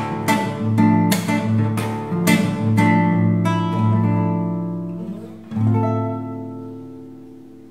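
Nylon-string classical guitar played fingerstyle: a run of plucked chords, then a last chord struck about five and a half seconds in and left ringing, fading away as the song's closing chord.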